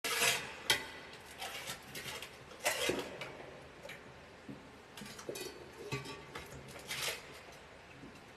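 Giant panda licking out a metal food bowl, with irregular clinks and scrapes of the bowl against the brick floor as it shifts.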